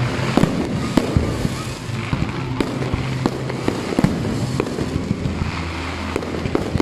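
Aerial fireworks display: continuous crackling with sharp bangs from bursting shells coming irregularly throughout.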